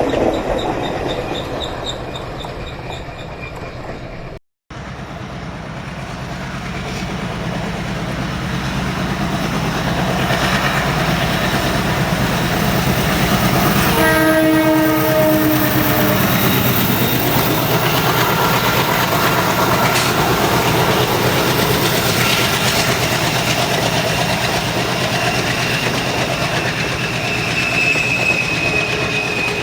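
ALCO WDM3A diesel-electric locomotive approaching with its engine chugging, growing louder. About halfway through it gives a horn blast of about two seconds. Then the passenger coaches roll past with a steady clickety-clack. The sound cuts out for a moment about four seconds in.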